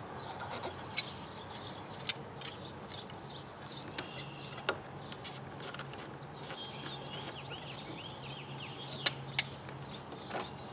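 Sharp metal clicks of pliers working a hose clamp onto a radiator hose at the filler neck, a few spaced out with two close together near the end. Birds chirp faintly in the background partway through.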